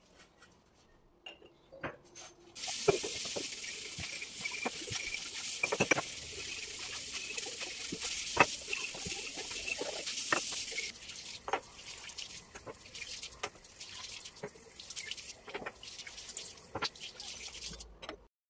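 Water running from a kitchen tap into a sink, with dishes and utensils clinking under it. The tap comes on about two and a half seconds in, runs harder for the first several seconds, then more gently, and shuts off suddenly near the end.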